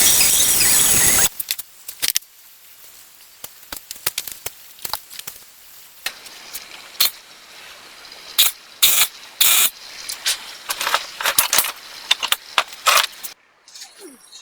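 A power drill runs at full speed for about a second and stops. It is followed by irregular metallic clinks and rattles of tools and small metal parts being handled, busiest near the end.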